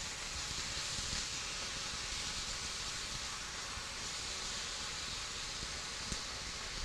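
Spinach, artichoke hearts and onions sizzling steadily in oil in a cast-iron skillet while a wooden spoon stirs them, with a small click about six seconds in.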